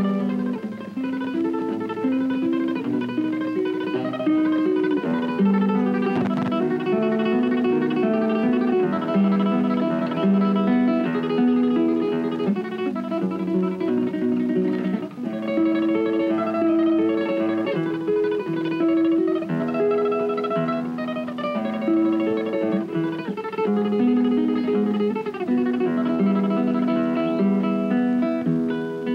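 Flamenco-style Spanish guitar music, quick runs of plucked notes.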